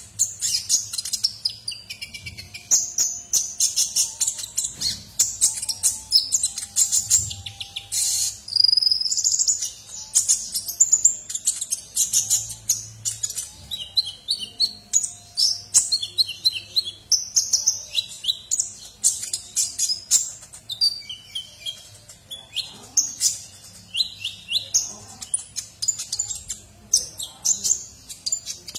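Male Van Hasselt's sunbird (kolibri ninja) singing without a break: a rapid string of very high, thin chirps, quick trills and short twittering phrases.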